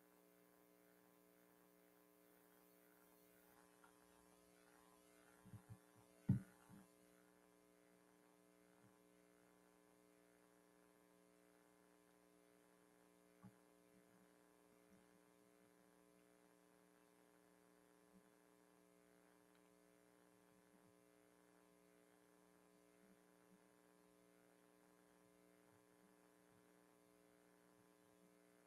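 Near silence with a faint steady electrical hum. A few soft knocks come about six seconds in, one louder than the rest, and a single faint tick follows later.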